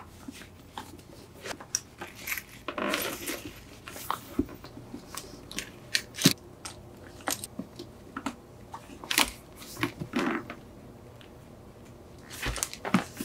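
Leather handbag being packed by hand: irregular soft clicks, light metallic clinks and rustling as wallets and small items are set inside, with a few sharper clicks.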